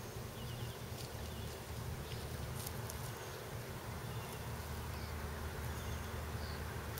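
An insect buzzing in a low, steady drone, with a few faint high chirps about a second in.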